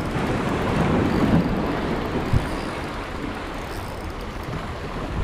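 Steady rushing noise of wind buffeting the microphone together with surf, with two short thumps, one at the start and one a little before halfway.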